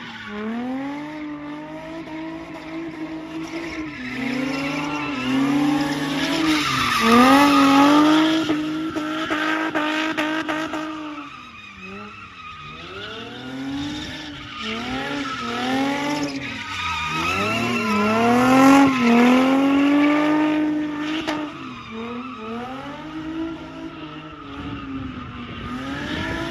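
Sedan drifting: its engine is held high in the revs and wavers, twice falling away sharply about halfway through and climbing back, over steady tyre squeal.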